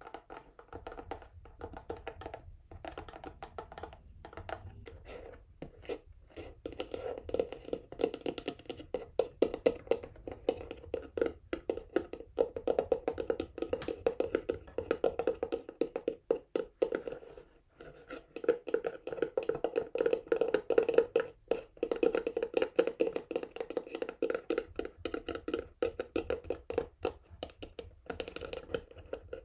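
Fingernails tapping and scratching quickly on a textured cardboard box, a dense run of hollow clicks. It gets louder a few seconds in and eases off briefly past the middle.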